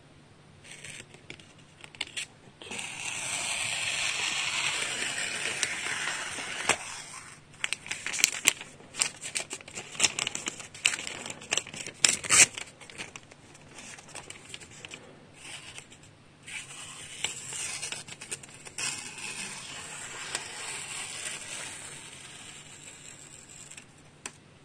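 Diamond sharpening stone (ALDIM 14/10) stroked along the edge of a VG-10 blade held in a guided sharpening system, a scratchy rasp. It is broken in the middle by a run of sharp clicks and knocks, then the rasping resumes.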